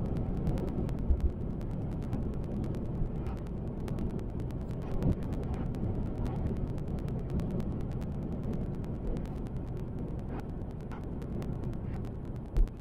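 Car driving: a steady low rumble of road and engine noise, with a rapid run of faint clicks throughout and a few louder knocks about a second in and near the middle.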